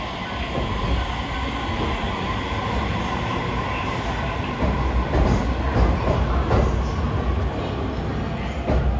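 Electric commuter train moving along a station platform, a steady rumble of motors and wheels. In the second half come a series of evenly spaced clacks as the wheels run over rail joints.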